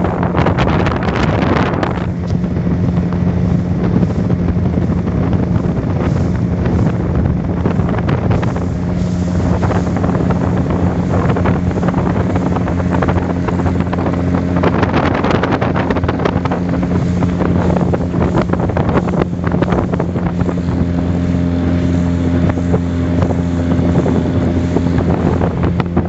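Speedboat engine running steadily at speed, with a continuous hum, and wind buffeting the microphone.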